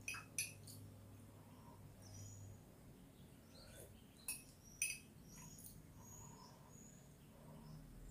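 Metal teaspoon clinking against a ceramic coffee mug in short sharp taps, twice near the start and twice about halfway through, over faint room tone.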